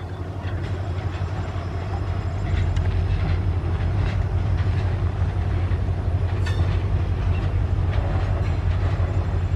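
WDG4 diesel locomotive's EMD 16-cylinder two-stroke engine running hard as it accelerates a loaded goods train: a deep steady hum that grows louder over the first couple of seconds, then holds. A few light clicks of wagon wheels passing over rail joints sit on top.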